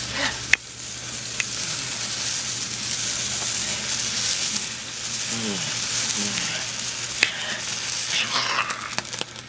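Handheld sparkler burning close by with a steady fizzing hiss, with a sharp click about half a second in and a few fainter ones later.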